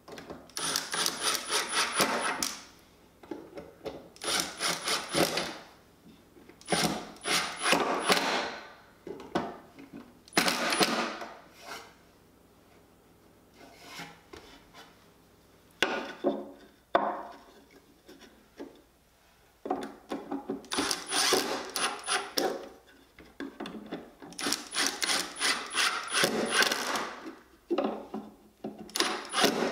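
Cordless impact driver driving screws into wood, in several short bursts of rapid hammering, each a second or two long, with brief pauses between.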